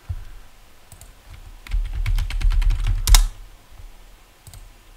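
Typing on a computer keyboard: a single click, then a quick run of about ten keystrokes over a second and a half, a short word typed in, ending in a harder keystroke.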